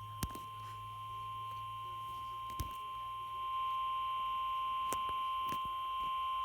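NOAA Weather Radio 1050 Hz warning alarm tone, one long steady beep heard through a weather radio receiver, announcing that an emergency warning is about to be read. A few clicks of static cut through it, and it gets a little louder about halfway through.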